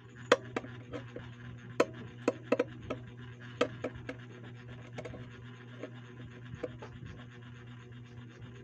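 Irregular sharp taps and clicks with some rubbing, handling noise on plastic, coming often in the first few seconds and then thinning out, over a steady low hum.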